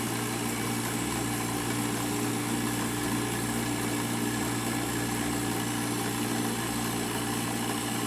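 Milling machine running steadily, its spindle turning an end mill that takes a light cut into the wall of a round tube, a constant hum.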